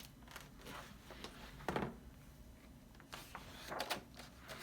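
Soft knocks and rustles of a picture book being handled, a few short ones with the loudest about two seconds in.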